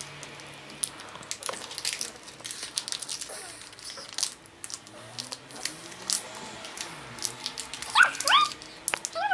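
Small plastic packet crinkling and crackling in a child's fingers as she works a ring out of it. About eight seconds in come a couple of short, high whining glides.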